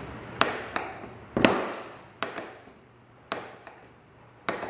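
Steel hand tools clinking and tapping against metal: about seven sharp, irregularly spaced knocks, each with a brief metallic ring.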